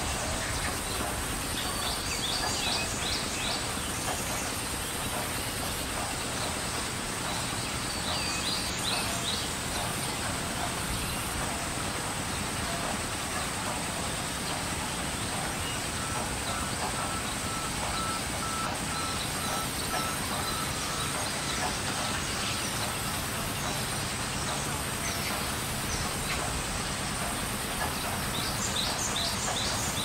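Vertical band saw running and ripping a log slab lengthwise: a steady, even cutting noise with a thin high whine on top. Brief high chirps come through a few times, about two seconds in, near eight seconds and near the end.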